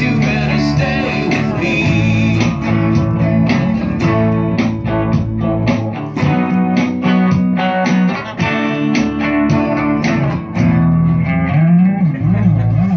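Live band playing an instrumental stretch of a rock song: electric guitar and bass, with regular drum hits.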